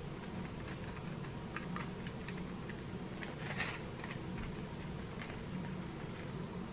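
Small plastic zip-lock bags of round diamond painting drills being handled and shuffled: soft crinkling and light clicking, with one louder rustle about three and a half seconds in.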